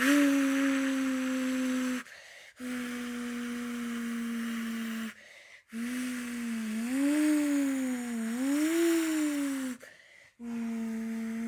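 A person imitating a car engine with their mouth, humming a steady low drone in stretches with short breaks for breath. In the middle stretch the pitch rises and falls twice, like an engine being revved.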